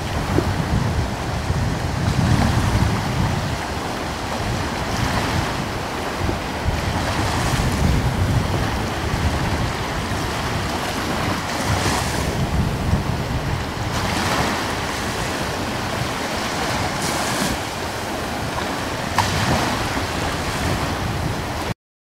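Gusty wind buffeting the microphone: a low rumble and a rushing hiss that swell and ease every few seconds, cutting off abruptly near the end.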